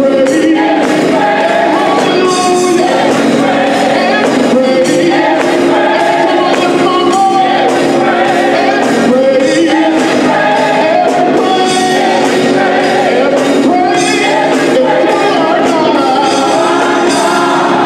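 Gospel choir singing with a live band behind it: drum kit keeping a steady beat, with electric bass and organ.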